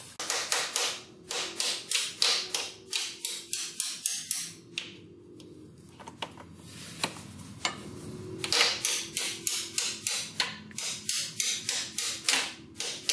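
Repeated sharp metal-on-metal knocks, about two to three a second, as the bent, misaligned steel kickstand of a Yamaha Jog scooter is forced back into line with a pry bar. The knocks stop for a few seconds midway and then start again.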